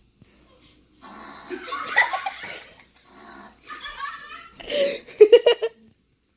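A person laughing hard in quick, rapid 'ha-ha' bursts near the end, after a noisy burst about a second in.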